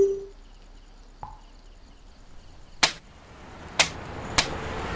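A blade chopping into a green tender coconut: three sharp strikes in quick succession in the last two seconds. Before them, at the very start, there is a brief ringing hit.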